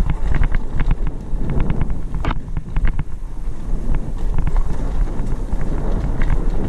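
RadRover electric fat bike rolling fast over a dirt singletrack: wind buffeting the microphone over a steady rumble from the tyres, with frequent rattling clicks from bumps and one sharper knock about two seconds in.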